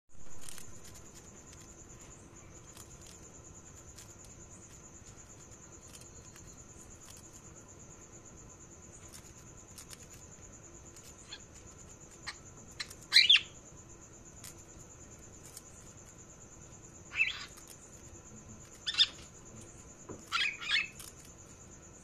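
Cockatiel giving short, sharp chirps: a single call about 13 seconds in, then calls near 17 and 19 seconds, and a quick double call near the end. Faint scattered ticks run between the calls over a steady high-pitched trill.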